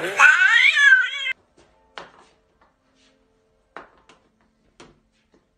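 A cat vocalizing in a long yowl whose pitch wavers up and down, cut off abruptly after about a second and a half. Then it is nearly quiet apart from a few faint short knocks.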